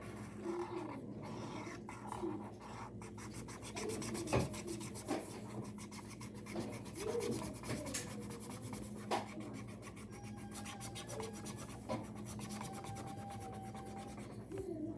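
Posca paint marker tip rubbing on paper in many quick back-and-forth colouring strokes, filling in an area.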